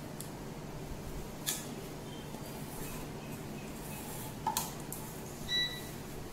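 Thick cake batter being poured and scraped from a steel mixing bowl into an aluminium cake tin: a few soft clinks of metal on metal, the last ringing briefly, over a steady low hum.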